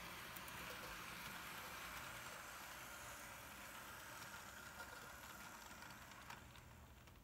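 Hornby Flying Scotsman OO-gauge model train running past on its track: a faint steady running noise of motor and wheels on the rails with a few light clicks, fading away near the end.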